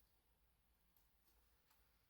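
Near silence: faint room tone with three very faint, short high clicks in the second half.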